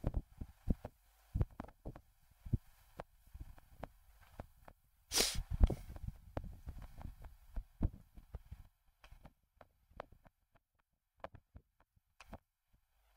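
Scattered faint clicks and low knocks of handling near the microphone, with one short rush of noise about five seconds in.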